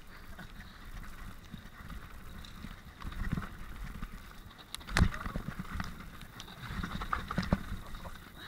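Mountain bike descending a rough dirt and stone trail: tyres rumbling over the ground and the bike rattling, with many short knocks from bumps and the loudest knock about five seconds in.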